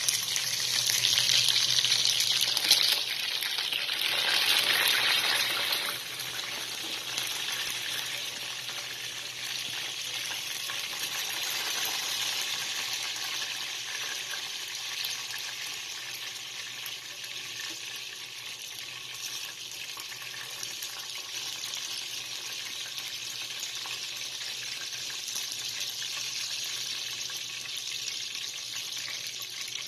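Chicken pieces sizzling as they fry in hot oil in a pan. The sizzle is loudest for the first six seconds or so, then settles to a steady, quieter sizzle.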